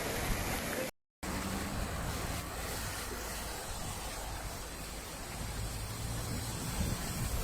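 Steady rushing storm noise of wind and water, dropping out to silence for a moment about a second in.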